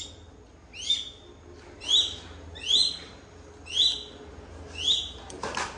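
Shikra hawk calling: a short call that sweeps upward and holds a high note, repeated about once a second, six times.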